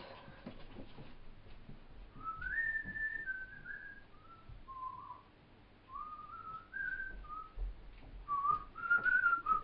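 A person whistling a tune, a string of short notes that step up and down, starting about two seconds in and carrying on to the end.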